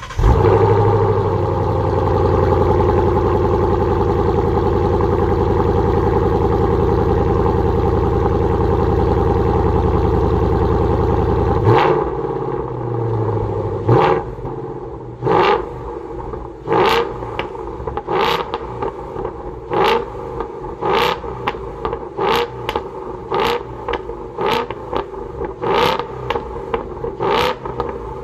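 Ford Mustang V8 with a Remus valved exhaust starting up and settling into a loud, steady high idle. About twelve seconds in it drops to a quieter idle, and from about fourteen seconds on it is revved in short throttle blips, roughly one every second or so.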